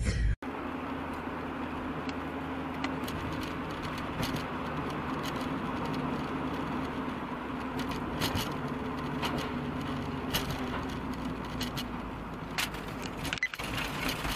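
Steady road noise of a moving car: an even hum with scattered light rattles and clicks.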